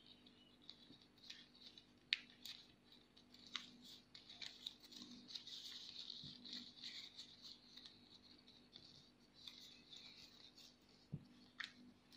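Faint rustling and crinkling of origami paper being folded and pinched by hand, with a few small ticks.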